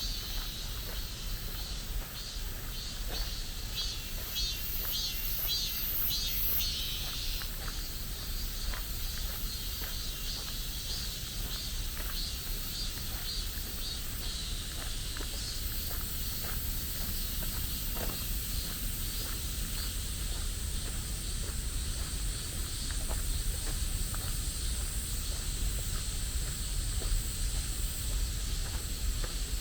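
Forest ambience with insects chirping: a fast pulsing high trill for about the first seven seconds, over a steady high-pitched drone, with a low rumble underneath.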